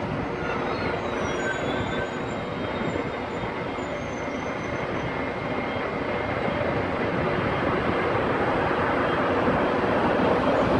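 Electric locomotive hauling a regional passenger train rolling through a station. Its steady rumble of wheels on rails grows gradually louder as it approaches.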